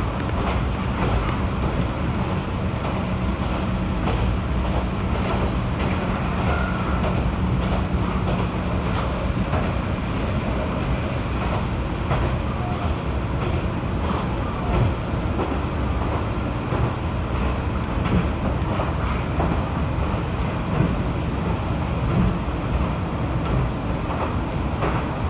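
Kanto Railway KiHa 2400 diesel railcar under way, heard from aboard: the steady rumble of the diesel engine and wheels on rail, with a steady engine hum for about the first third. A few sharp knocks of wheels over rail joints come later.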